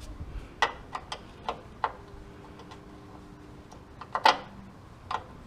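Scattered sharp metallic clicks and taps of a 10 mm wrench being handled and fitted onto a brake line nut, the loudest a double click about four seconds in.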